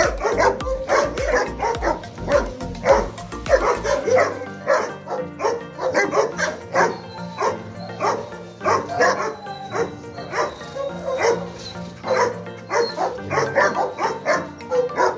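A seven-month-old male German Shepherd barking repeatedly at a person reaching toward it, over background music with a low beat for the first few seconds.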